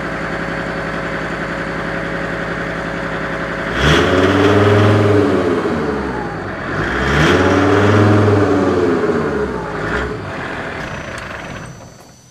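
Mercedes OM605 five-cylinder diesel idling on its first start, blipped up twice and dropping back each time, then shut off and running down near the end.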